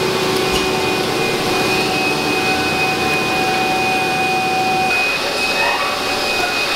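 Steady machine noise of workshop equipment: a loud hum with several held whining tones, one high and clear. One of the lower tones drops out about five seconds in.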